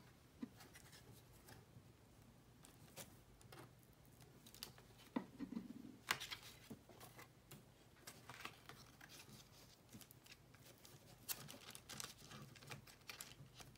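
Faint, scattered rustles and light taps of paper being handled by hand: freshly glued patterned paper pressed and smoothed flat, then a cream paper envelope being folded.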